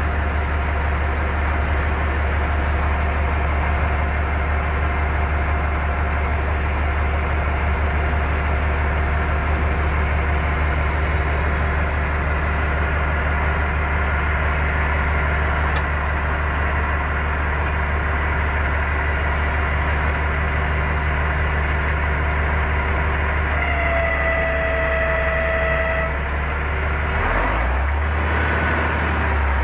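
Heavy diesel engine running steadily at a low, even note. About two-thirds of the way through, a brief steady tone sounds for about two seconds, and soon after the engine note shifts.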